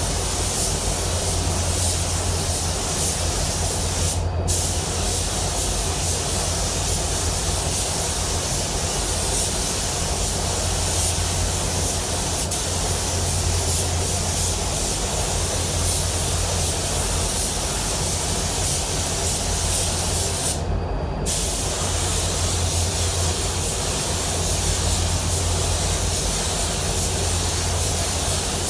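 Air-powered paint spray gun hissing steadily while laying a coat of solvent basecoat, cutting out briefly twice, about four seconds in and about twenty-one seconds in. A steady low hum runs underneath.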